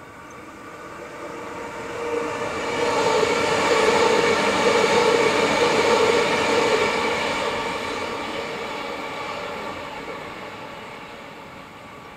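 Electric passenger train passing and running away down the line. The sound grows to a peak a few seconds in and then fades, a steady whine laid over the rumble of wheels on rail.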